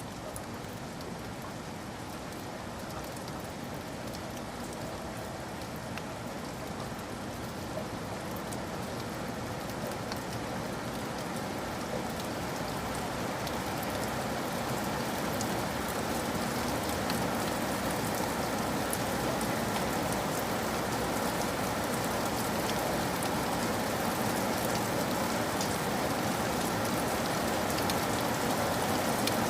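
Steady rain falling: an even hiss dotted with small drop ticks, slowly growing louder.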